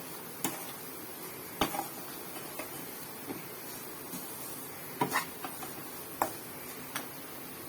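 Scattered clinks and knocks of a utensil against a bowl as a ghee-soaked rava laddu mixture is stirred and worked, about seven or eight sharp hits at irregular intervals, a few of them ringing briefly.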